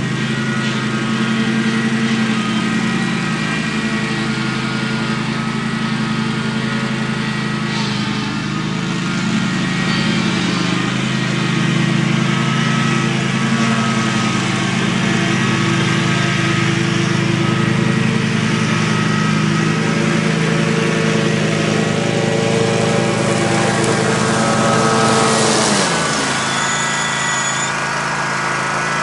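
Riding lawn mower's engine running steadily at working speed while cutting thick, overgrown grass. About 26 seconds in, its pitch drops as the engine slows.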